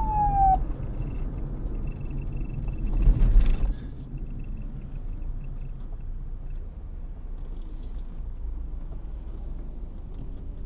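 The last falling wail of a police siren cuts off about half a second in, leaving a low steady rumble. A louder swell of noise builds and drops off sharply a little under four seconds in.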